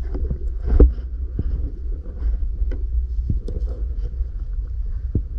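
Underwater sound picked up by a submerged camera: a steady low rumble with scattered sharp clicks and knocks, the loudest about a second in.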